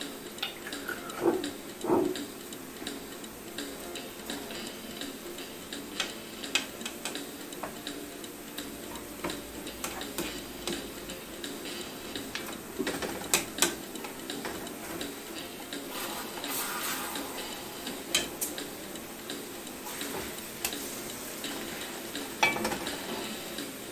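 Turkey burgers and meatballs sizzling in a skillet, with irregular clicks and scrapes of a utensil against the pans as the onions and peppers are stirred and the burgers are turned.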